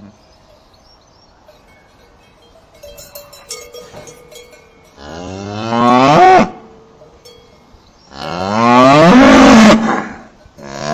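Cow mooing: two long moos, the first about five seconds in rising in pitch toward its end, the second about three seconds later. Faint clinking comes before the first moo.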